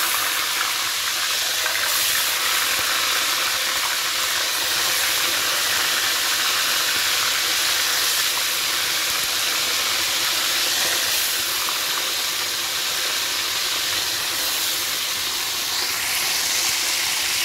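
Whole sea fish frying in a wok of hot oil: a steady sizzle.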